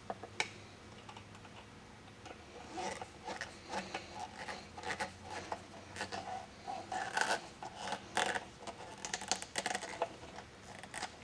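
Screws being driven by hand to fasten a cover back onto an air compressor: irregular small clicks and scrapes of the screwdriver and screws, busier from a couple of seconds in.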